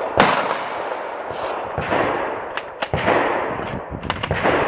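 A string of gunshots fired in quick succession at irregular intervals, each with a sharp crack and an echoing tail, the loudest about a quarter second in.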